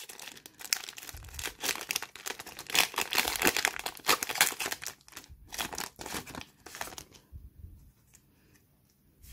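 Foil wrapper of a Pokémon Sword and Shield booster pack being torn open and crinkled: a dense run of crackling for about seven seconds, then only a few faint rustles.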